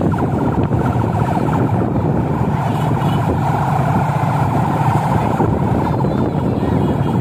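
Steady, loud road noise of a motorcade of cars and pickups driving along, heard from a moving vehicle in the convoy.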